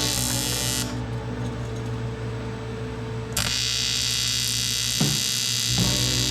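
A steady electrical hum, with a high hiss over it that cuts out about a second in and comes back a little past three seconds.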